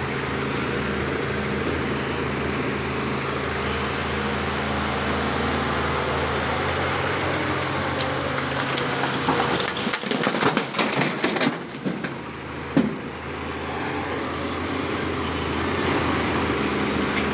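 Heavy diesel engine of quarry machinery running steadily at an even speed. In the middle comes a burst of loud, irregular clattering knocks lasting about three seconds, followed by one sharp knock, before the steady engine hum resumes.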